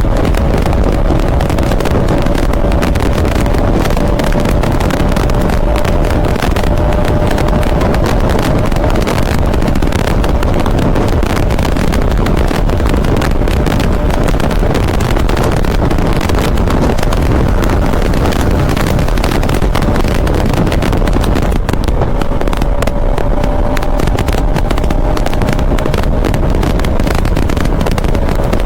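A motorcycle riding at steady speed: wind rushing over the microphone with the engine's steady drone underneath, a faint engine tone fading in the middle and coming back near the end.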